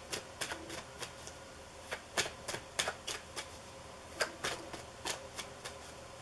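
Tarot deck being shuffled by hand, the cards passed from hand to hand in small packets: an uneven run of soft card snaps and slaps, two to four a second.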